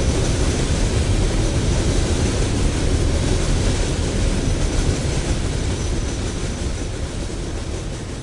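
Freight train of refrigerated boxcars rolling past: a steady rumble and rail noise with no horn, slowly growing quieter toward the end.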